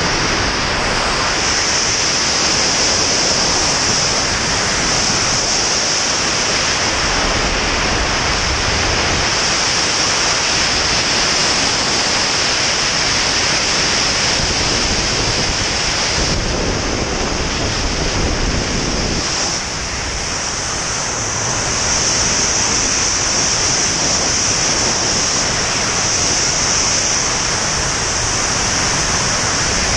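Wind rushing over the microphone of a body-mounted camera in freefall during a wingsuit jump: a steady, loud roar of air that eases briefly about two-thirds of the way through, then comes back.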